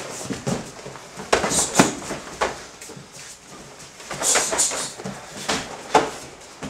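Full-contact karate sparring: punches, knees and kicks landing with irregular thuds on bodies and gi, mixed with the fighters' sharp exhaled grunts and feet on the mat. The heaviest exchanges come about a second and a half in and again around four to six seconds in.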